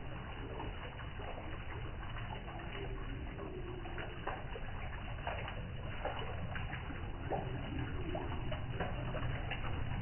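Water from a small stone-and-brick garden waterfall running steadily, splashing down a stone channel.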